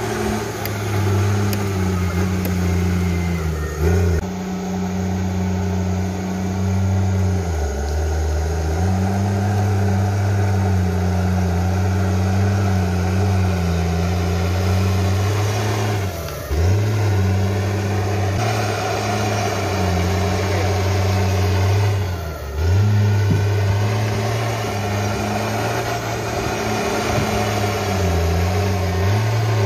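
Crawler bulldozer's diesel engine running steadily while it pushes soil and stumps with its blade. The engine note sags briefly about four times (around 4, 8, 16 and 22 seconds in) and then picks back up.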